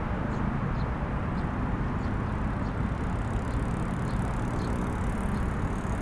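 Steady low rumble of road traffic on the bridge, with faint high chirps repeating about twice a second.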